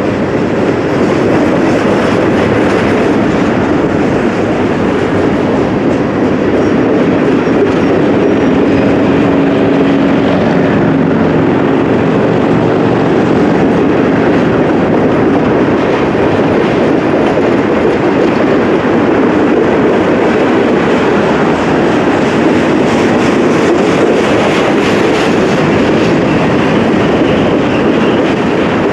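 Long freight train rolling past at close range: a loud, steady noise of wheels on rail.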